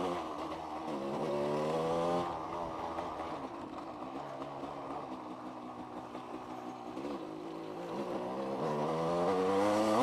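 1990s KTM two-stroke dirt bike engine under way on a trail: it revs up, climbing in pitch for the first couple of seconds, runs lower and steadier through the middle, then climbs again near the end.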